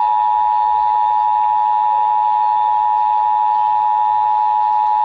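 Emergency Alert System two-tone attention signal (853 and 960 Hz together) sounding loud and steady from an EAS encoder/decoder relaying the alert. It is the tone that precedes an EAS alert's voice message.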